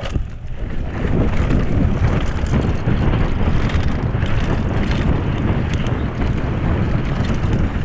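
Wind rushing over the microphone as a mountain bike rolls fast down a dirt and gravel trail, with the steady rumble and small rattles of the tyres and bike over the bumps.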